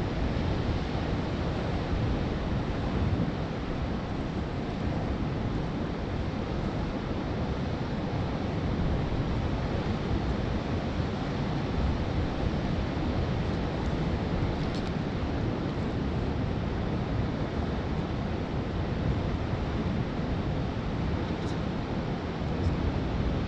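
Steady rushing of wind and sea surf, with wind buffeting the microphone.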